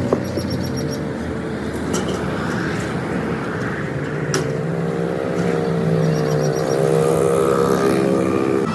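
A motor running steadily with a pitched hum, its pitch lifting slightly about four seconds in, with a few sharp clicks over it.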